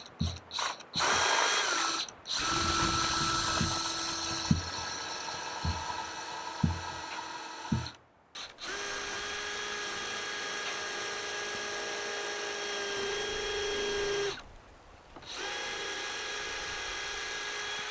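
Power drill running in several bursts, each a steady motor whine; the last two runs last about five seconds each. A few knocks come between the runs.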